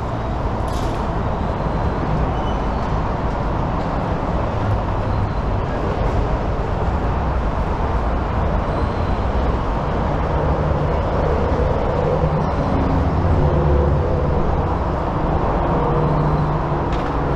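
Steady rumble of road traffic, with a heavy vehicle's engine hum joining in during the second half and the level rising slightly.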